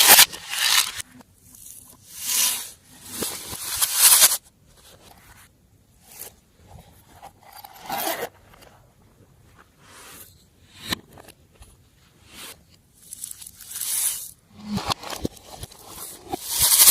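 Glossy slime being worked by hand, squished and stretched in irregular noisy bursts a second or two long, with quiet gaps between.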